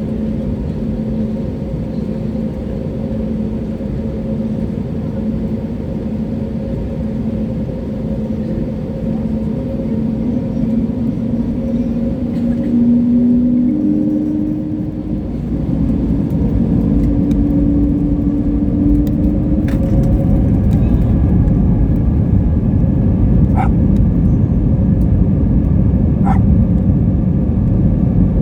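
Airbus A320 cabin noise: a steady engine hum whose tone rises in pitch about twelve seconds in as the engines spool up. A louder, heavier rumble follows from about fifteen seconds, as at the start of the takeoff roll, with a few sharp knocks near the end.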